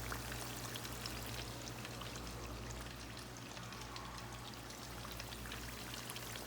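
Chicken wings deep-frying in hot oil: a steady sizzle with many small crackles, over a low steady hum.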